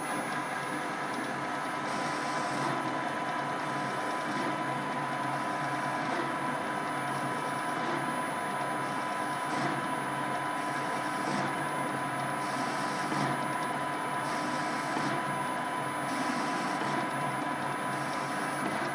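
Hercus PC200 benchtop lathe converted to CNC, running: a steady machine whir with a high whine, and a faint pulse in the hiss about once a second.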